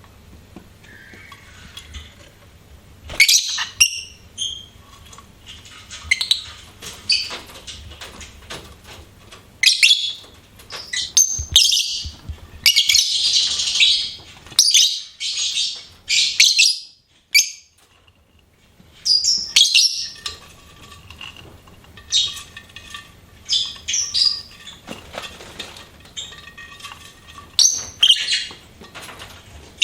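Lovebirds chirping: sharp, high-pitched chirps in scattered runs, densest through the middle, with a brief lull just after.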